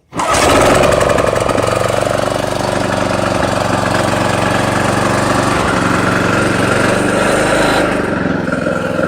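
Kubota W5019 push mower's 5 hp four-stroke engine pull-started, catching on the first pull and running steadily at speed.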